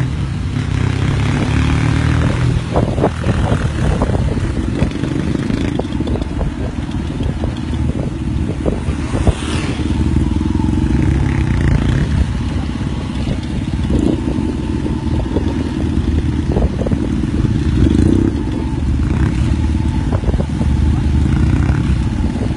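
Several motorcycles riding together, heard from one of the moving bikes: a loud, steady engine and road rumble.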